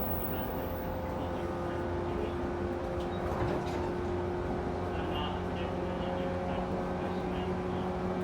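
Running sound inside a JR 113 series electric multiple unit's motor car: the MT54 traction motors hum steadily under the rumble of wheels on rail while the train runs at speed, with a further low motor tone coming in about five seconds in.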